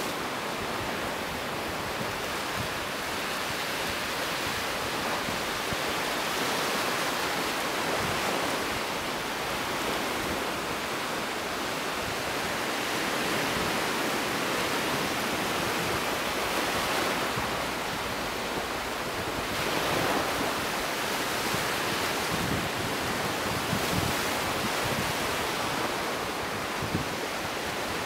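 Sea surf washing on a beach: a steady hiss of small waves that swells and eases slowly.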